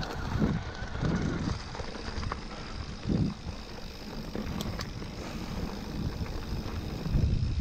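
Specialized Turbo Levo SL electric mountain bike being ridden on a trail: a steady rolling noise with low rumbling thuds and a few clicks and rattles over the ground.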